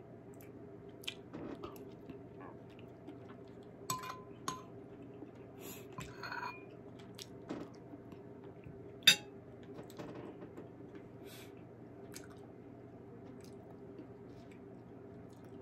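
A person eating chicken soup: chewing and mouth noises, with a metal spoon clinking lightly against a ceramic bowl a few times. The loudest event is a single sharp click about nine seconds in.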